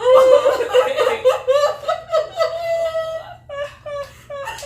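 Women laughing hard and high-pitched, with one long held note about halfway through and short choppy laughs near the end.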